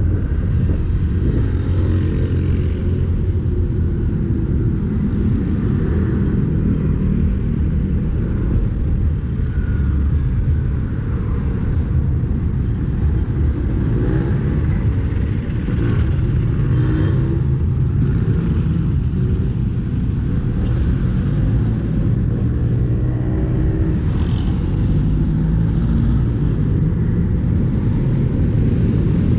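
Road traffic heard from a moving bicycle: a steady low rumble of cars and motorcycles, with a jeepney passing close alongside about halfway through.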